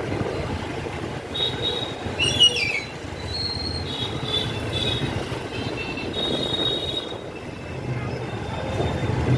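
Road and wind rumble while riding a scooter, with high-pitched squeals coming and going. The loudest is a falling squeal about two seconds in.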